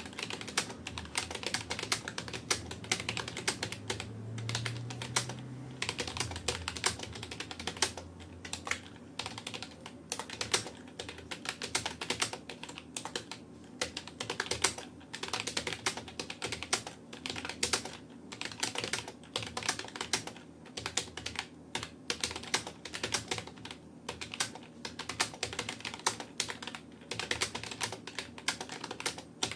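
Fast, continuous touch-typing on a Rapoo computer keyboard: a dense run of key clicks at about 65 words per minute, with short irregular pauses.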